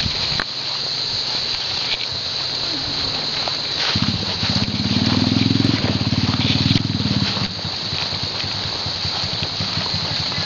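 A small engine running with a rapid pulsing note that swells louder for about three seconds in the middle, over a steady high-pitched buzz.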